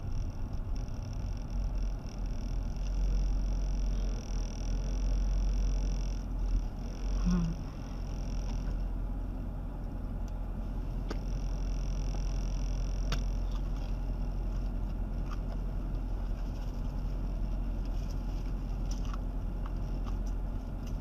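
Steady low rumble inside a car's cabin with the engine running. A thin high whine sounds for the first several seconds and again briefly midway, with a few faint clicks.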